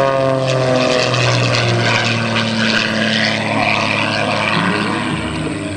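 Super Chipmunk aerobatic plane's piston engine and propeller flying past, the engine note falling in pitch as it goes by. From about a second in, the even note gives way to a rougher, noisier sound as the plane manoeuvres.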